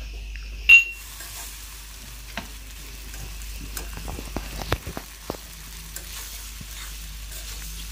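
Shell pasta frying and sizzling in oil in a wok while a metal spatula stirs and breaks it up, scraping and clicking against the pan. A sharp ringing clank about a second in is the loudest sound.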